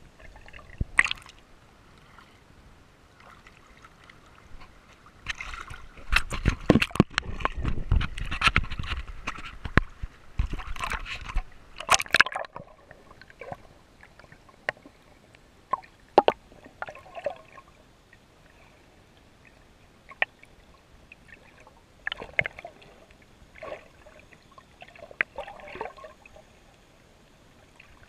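Water sloshing and gurgling around a snorkeler's camera. A louder stretch of splashing starts about six seconds in and lasts several seconds, followed by scattered sharp clicks.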